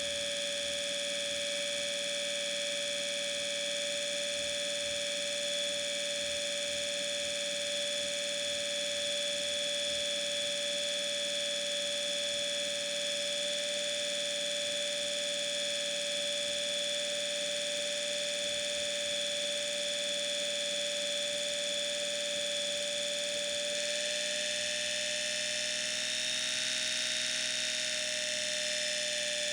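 A steady hum made of several held tones, with a faint pulsing underneath; about 24 seconds in the pitch steps slightly up and the higher tones change.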